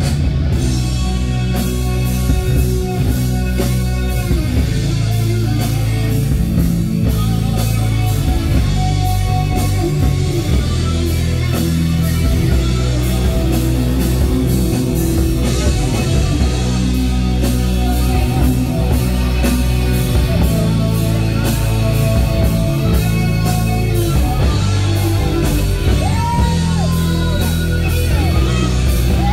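Loud rock music with guitar and a drum kit, steady throughout; a sung vocal line comes in near the end.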